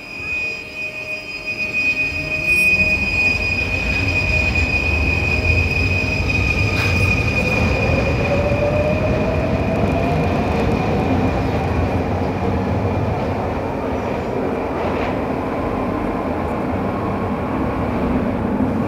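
Passenger train running: a steady high squeal over the first several seconds, then a whine rising in pitch, over a constant low rumble of the wheels on the track.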